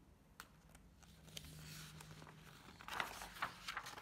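Paper rustling and soft handling clicks as a page of a large picture book is turned, loudest about three seconds in.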